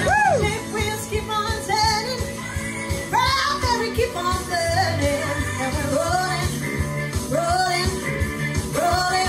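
A woman singing into a handheld microphone over a rock-and-roll backing track with a steady beat.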